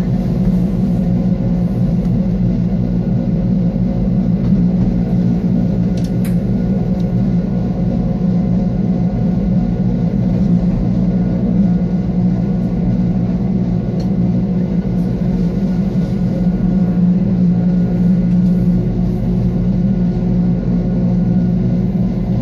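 Wengernalpbahn electric rack-railway train running, heard from inside the carriage: a steady hum from its drive over a low rumble, with a sharp click about six seconds in.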